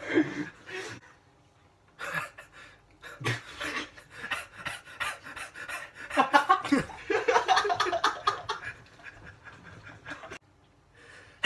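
A person panting and gasping in quick short breaths, with bursts of laughter, as in the wind-up to a staged sneeze.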